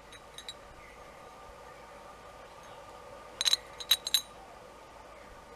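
Light metallic clinks as metal motorcycle foot pegs and their hardware are handled: a faint tick or two near the start, then a quick cluster of ringing clinks about three and a half to four seconds in.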